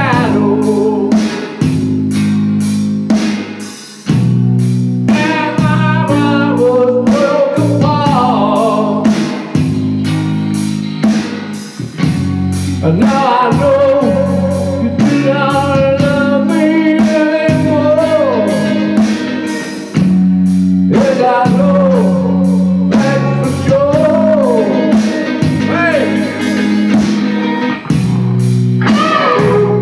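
Live rock music: a Stratocaster-style electric guitar played with bent and sliding notes over drums and bass, with a man singing at times.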